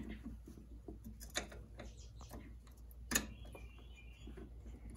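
Light clicks and taps of a push fastener and a metal bracket being handled and lined up on an ATV frame, with one sharper click about three seconds in.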